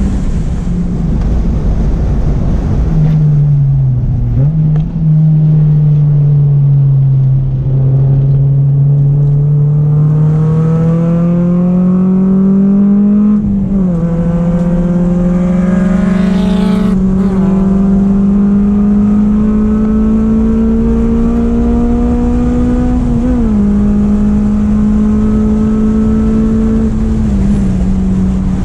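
Honda S2000 track car's four-cylinder engine heard from inside the cabin. Its pitch falls about three seconds in, then climbs slowly under acceleration. It drops sharply at gear changes near the middle and again about two-thirds through, then holds fairly steady.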